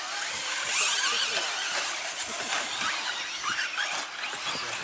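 Electric brushless-motor RC short course trucks racing: several motors whining, rising and falling in pitch as they accelerate and brake, over the hiss of tyres on dirt, with a few brief clicks.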